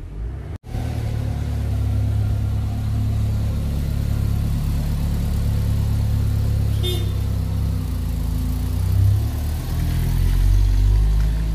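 Car engine running close by, a steady low rumble that grows louder near the end.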